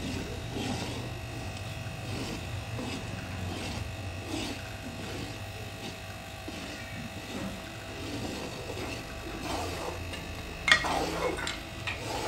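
A long ladle stirring thick chana dal with semolina in a large aluminium pot, over a steady low hum. A sharp knock comes about ten seconds in, followed by faint voices near the end.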